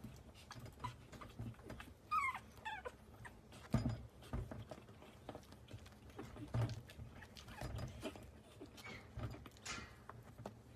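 Chihuahua puppy giving a few short, high squeaky calls about two seconds in, with soft scuffing and low thumps as it squirms on its back and gnaws at its paws on the bedding.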